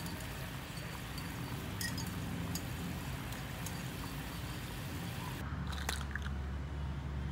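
A wire whisk stirring a runny mixture in a ceramic bowl over simmering water, with light scraping and faint clinks against the bowl. About five seconds in, this gives way to a steady low hum and a few sharp taps.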